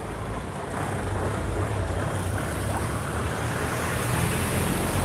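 Steady traffic noise on a wet city street: a hiss of tyres with a low engine hum beneath, growing slightly louder as vehicles pass close by.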